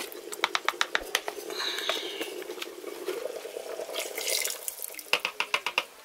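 A wooden spoon stirring and rapping against a bowl, a thin thickening mixture poured into a saucepan of soup, then the spoon rattling quickly against the metal saucepan as it is stirred in.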